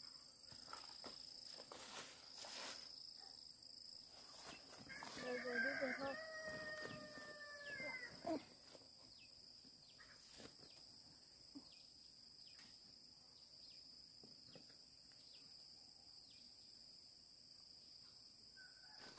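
A rooster crows once, about five seconds in: one long call that holds its pitch and falls away at the end. A faint, steady, high-pitched whine runs underneath.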